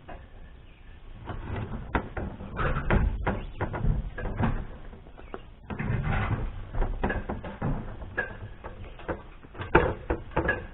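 A homemade ladder hoist being handled and unloaded from a truck: irregular knocks, clanks and rattles with stretches of scraping, busiest in two long runs with a short lull in the middle.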